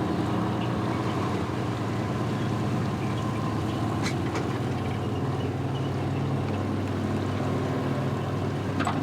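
Boat engine running steadily at low speed, a continuous low hum, with a single sharp click about four seconds in.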